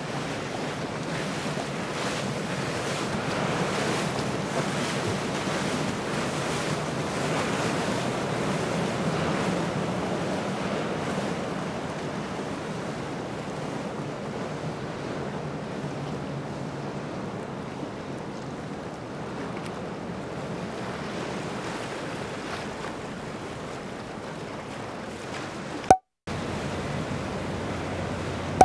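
Rushing water of a boat's wake and wind noise on the microphone, with the low drone of triple Mercury 600 V12 Verado outboards as the boat runs past; it swells over the first ten seconds or so, then eases off. Near the end a sharp click is followed by a brief cutout.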